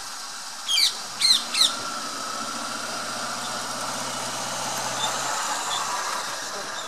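Three loud, shrill bird calls close together about a second in, each sweeping sharply down in pitch. They are followed by a low, steady hum that lasts a few seconds and then stops.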